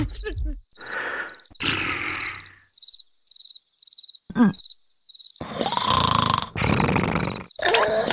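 Cartoon characters' wordless vocal noises and grunts over cricket chirping, which repeats about three times a second. The chirping is heard alone in a pause near the middle. Louder vocal noises come near the end.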